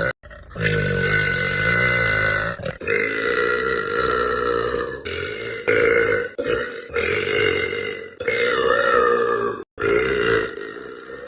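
A girl burping loudly: a run of five or six long, drawn-out burps back to back, each lasting a second or two.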